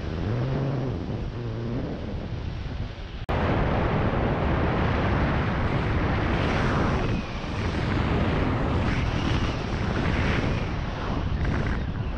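Wind noise from airflow rushing over the camera microphone on a hang glider in flight. It is a steady rush that jumps louder at an abrupt cut about three seconds in.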